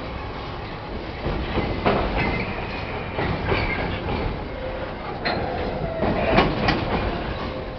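Container flat wagons of a freight train rolling past, their wheels clattering and knocking over the rail joints, with the sharpest knocks about two seconds in and again around six and a half seconds.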